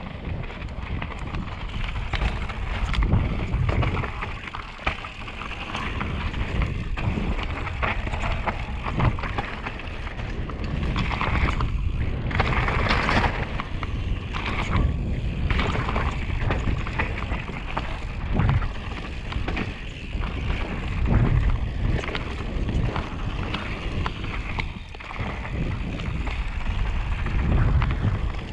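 Mountain bike descending a dirt and gravel trail: knobby tyres rolling and crunching over loose ground, with wind rushing over the microphone and a steady low rumble. About halfway through there is a harsher, brighter stretch of noise.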